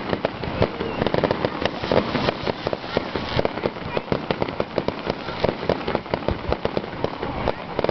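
Fireworks crackling and popping, many sharp small bangs in rapid, irregular succession.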